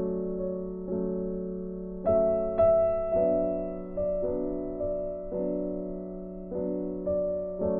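Background piano music: slow, gentle chords struck about once a second, each left to ring and fade.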